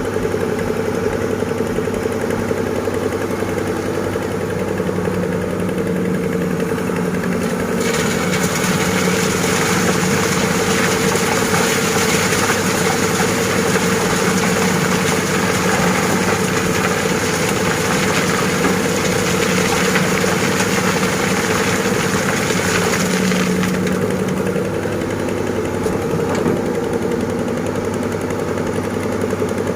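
Heavy diesel engine of an excavator running steadily while it loads sand into a dump truck. From about 8 seconds in it grows harsher and louder for about a quarter of a minute, as the machine works under load, then settles back.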